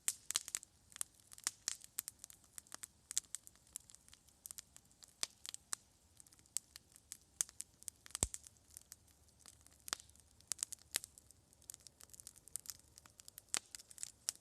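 Campfire crackling: irregular sharp pops and snaps, several a second, with one stronger pop about eight seconds in.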